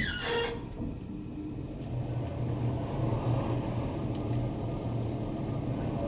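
Otis Lexan traction elevator car travelling between floors: a steady low hum and rumble of the ride, after a brief falling squeal in the first half second.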